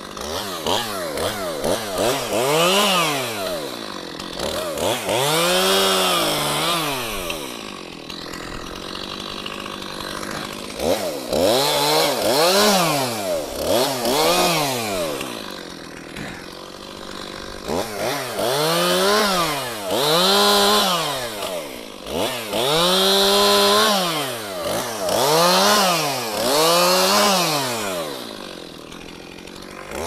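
Gas chainsaw cutting up the branches of a fallen dead maple. It is revved up and let fall back again and again, so each cut is a rising then falling whine, in several runs with the saw idling between them.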